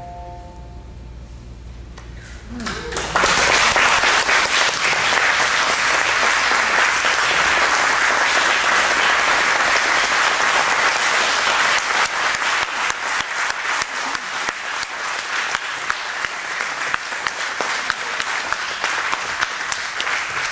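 A small audience breaks into applause about three seconds in, after a brief hush, then claps steadily on.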